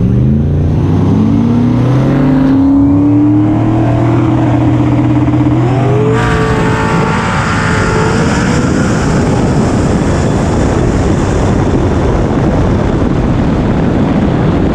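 Turbocharged 5.3 LS V8 drag car at the starting line: the engine revs up, holds at a steady speed for a few seconds, then rises again about six seconds in as the car launches, turning into a loud rush of engine and exhaust noise as it runs down the track.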